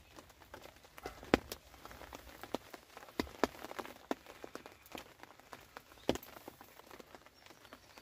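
Raindrops tapping irregularly on a fishing umbrella's canopy overhead, with a few heavier drops, the loudest about a second and a half in and again about six seconds in.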